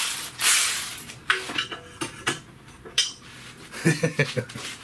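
A loud hiss that stops about a second in, followed by scattered metallic clinks and knocks of hand tools and metal parts being handled, with a quick cluster of knocks near the end.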